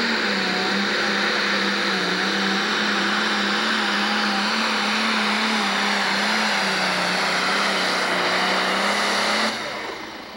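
Single-turbo diesel engine of a pro stock pulling tractor running flat out under heavy load as it drags the weight-transfer sled, its pitch slowly sagging as the load builds. About nine and a half seconds in it cuts off suddenly as the pull ends.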